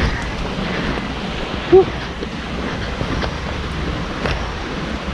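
Steady wind and rain noise buffeting the camera's microphone, with one short pitched squeak a little under two seconds in.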